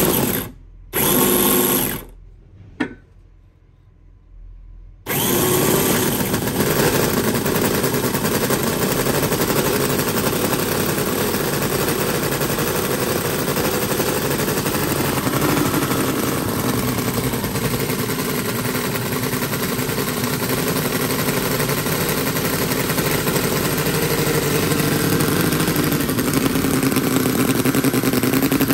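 Howin L6-210 21cc four-stroke inline-six scale model petrol engine: a couple of short loud bursts in the first two seconds, then about five seconds in it starts and runs steadily, loud and even, while still running in on oil-rich fuel.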